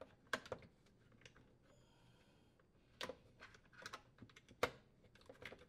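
Plastic lower wash arm support of an Electrolux dishwasher clicking and knocking against the water supply manifold as it is pressed and snapped into place: a scatter of light, sharp clicks, the loudest about three seconds in and again near five seconds.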